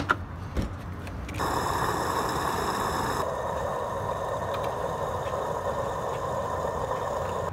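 A few sharp clicks, then a steady mechanical running noise that sets in abruptly about a second and a half in and holds steady until it cuts off.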